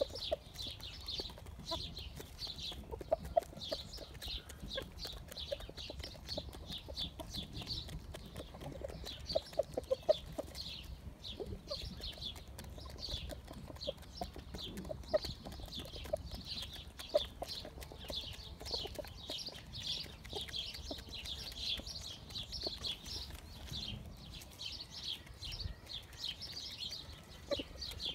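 Exchequer Leghorn chickens clucking softly as they peck grain from bare earth, with scattered sharp taps.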